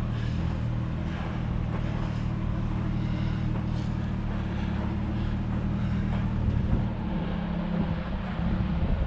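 Jeep engine running at low speed, a steady low hum that turns rougher about seven seconds in.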